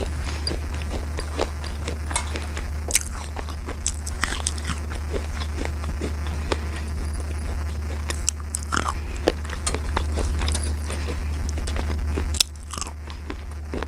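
Dry, brittle slate pieces being bitten and chewed: a run of sharp, irregular crunches over a steady low hum.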